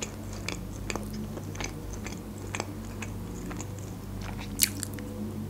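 Close-miked chewing of a soft filled doughnut, with small wet mouth clicks scattered through and one sharper click a little after four and a half seconds in. A steady low hum lies underneath.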